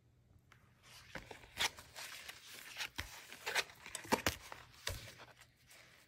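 A chunky junk journal built from paper and card tags, handled as it is closed and turned over: its stiff pages and tags rustle and crackle in a run of short scrapes and crinkles with a few sharper clicks.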